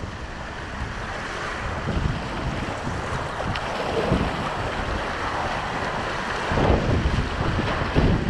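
Whitewater rapids rushing around a kayak as it runs down through them, with wind buffeting the microphone; the low buffeting rumble grows louder about six and a half seconds in.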